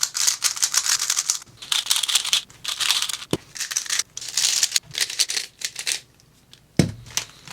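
Rubik's cubes being scrambled by hand: rapid bursts of plastic clicking and rattling as the layers are turned, with short pauses and a couple of sharp knocks as cubes are set down or picked up.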